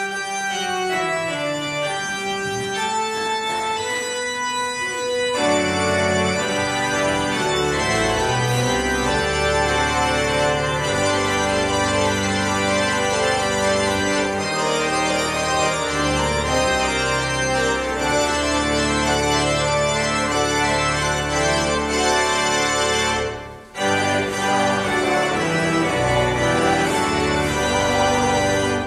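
Church organ playing sustained held chords. It opens with a few lighter upper notes, grows fuller with deep bass notes from about five seconds in, and pauses briefly about five seconds before the end before going on.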